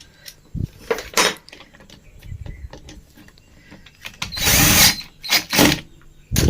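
Power screwdriver running in a few short bursts as it drives the casing screws of an instant water heater home, the longest burst about four and a half seconds in.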